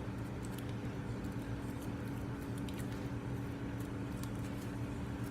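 Homemade glitter-glue and Tide slime being squished and pulled by hand, making faint sticky clicks and squelches over a steady low hum.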